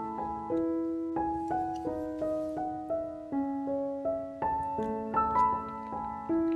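Background piano music: a melody of separate notes, about two or three a second, over held lower notes.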